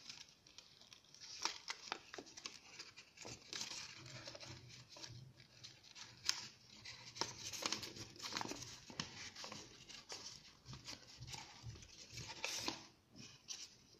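A sheet of square origami paper being folded and creased by hand: faint, irregular paper rustling with small crackles.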